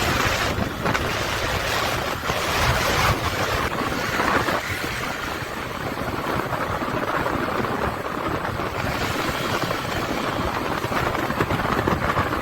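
Steady wind rush over the microphone from riding a Honda Shine motorcycle at road speed, with the bike running underneath.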